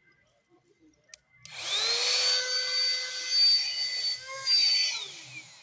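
Mini vacuum cleaner switched on: its small motor spins up with a rising whine about a second and a half in and runs with a high steady whine over a rush of air. It dips briefly and then winds down near the end.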